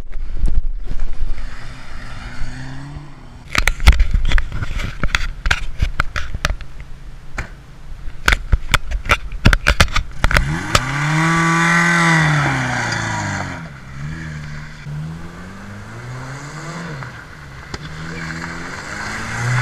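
For the first half, camera handling noise: irregular knocks and rubbing as the camera is carried over the gravel. Then a ute's engine revs hard about halfway through, its pitch climbing and falling away, and keeps rising and dropping with the throttle as the ute spins doughnuts on the loose quarry gravel.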